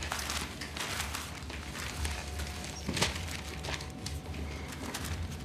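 Steady low hum, with paper sheets rustling in the first second or so and a single sharp knock about three seconds in.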